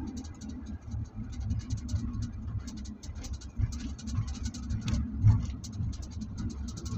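Road rumble inside a moving car, with a constant patter of small scratchy clicks over it and a louder bump a little after five seconds in.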